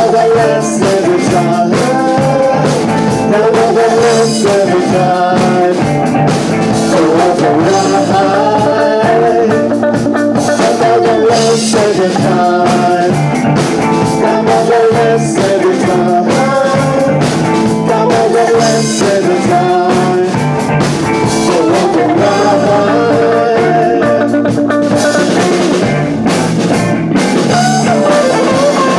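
Live rock band playing: electric guitars, electric bass and a drum kit, with a woman and a man singing together over a steady beat.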